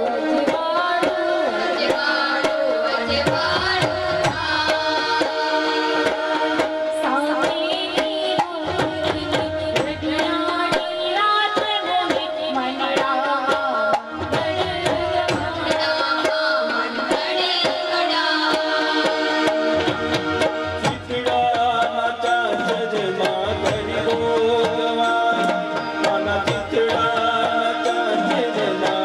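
Live Navratri garba music: a keyboard melody over a steady, fast rhythm played on a Roland Octapad electronic drum pad.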